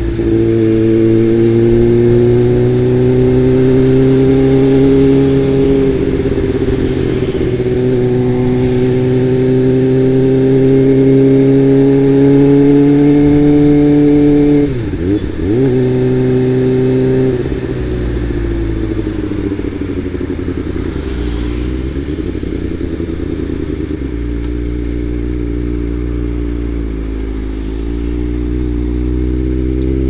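Kawasaki Ninja ZX-25R's 250 cc inline-four engine through a Best3 aftermarket exhaust, ridden at part throttle. The pitch climbs slowly, drops about six seconds in and climbs again, dips sharply about halfway, then runs lower and quieter, rising and falling gently, with the throttle eased.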